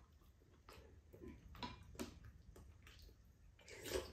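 Faint eating sounds at a table: light clicks and ticks of spoons and chopsticks against bowls, with a short louder scraping sound near the end as a spoon scoops food from a bowl.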